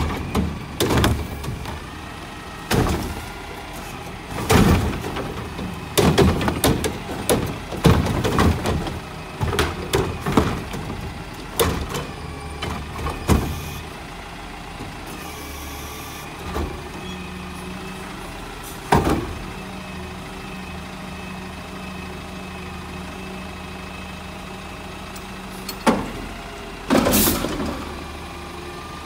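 Mack front-loader garbage truck with a Curotto-Can arm running on hydraulics over its diesel engine: for the first half, repeated loud bangs and knocks as a yard-waste cart of brush is shaken out into the can. Then the engine and hydraulics hum steadily with a single knock as the forks raise the can over the cab, and near the end a loud rushing crash as the load is tipped into the hopper.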